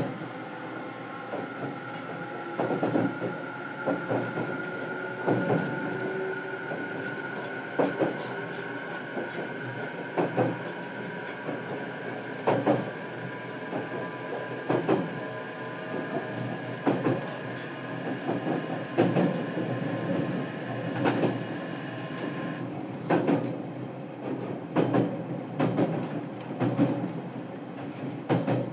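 Running sound heard inside a JR Kyushu 817 series electric multiple unit, car KuMoHa 817-23: the wheels clack over rail joints in regular sets every two seconds or so. Under the clacking runs a steady high whine from the traction motors, which stops about three quarters of the way through.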